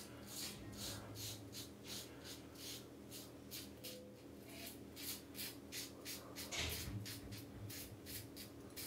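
Merkur Progress adjustable safety razor with a Feather double-edge blade scraping through two days' stubble around the chin and lip in short, quick strokes, about three a second, with a brief lull near the middle.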